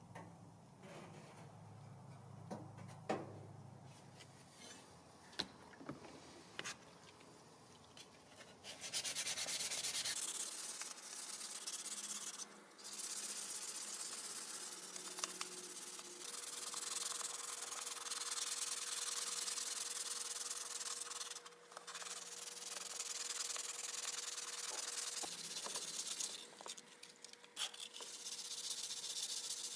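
Sanding sponge wet-sanding the grey-coated stamped-steel body of a 1940s Marx P-35 toy plane: a few light handling clicks, then from about a third of the way in a steady scratchy rubbing in long strokes, with a few brief pauses.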